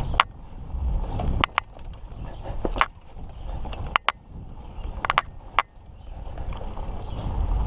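Mountain bike rolling along a dirt trail: a low rumble of tyres and wind that rises and falls, with sharp clicks and rattles from the bike over bumps at irregular intervals, some in quick pairs.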